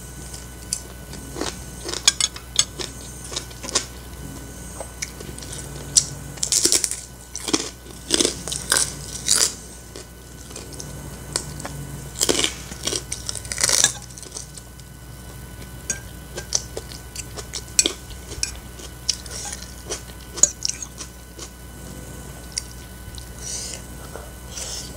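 Close-up eating sounds of a person chewing Indomie goreng fried instant noodles and biting raw green bird's eye chilies, with sharp crunches coming in bunches. A metal fork clinks on the plate now and then.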